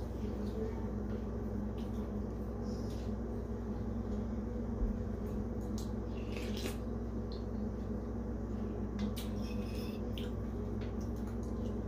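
Fork and spoon clinking now and then against a ceramic bowl, with soft eating sounds as noodle soup is spooned up and eaten, over a steady low hum.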